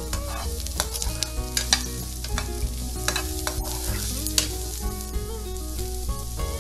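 Chopped garlic, onion and ginger sizzling in oil in a nonstick frying pan while a plastic spatula stirs them, with frequent sharp clicks and scrapes of the spatula against the pan.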